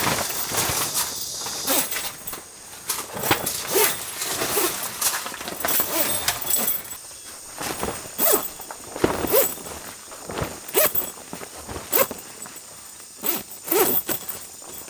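Heavy black awning wall fabric rustling and flapping as panels are shaken out and hung, in irregular swishes and snaps of the cloth.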